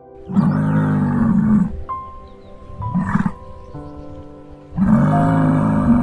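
Musk oxen giving three low calls: a long one, a short one and another long one, each over a second apart. Soft background music with held tones plays underneath.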